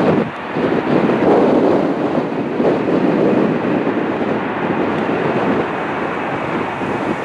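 Strong, gusty wind buffeting the microphone, over the steady jet noise of an Airbus A380's four engines on the runway.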